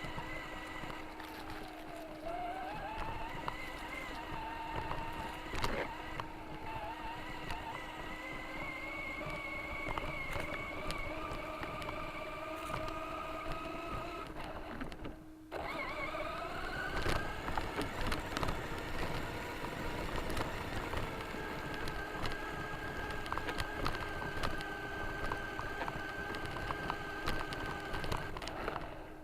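Electric motor and gearbox of a 4x4 RC car whining, the pitch rising and falling as it speeds up and slows down, over a steady low hum and the knocks and rattling of the chassis on rough ground. The whine breaks off briefly about halfway through, then climbs again.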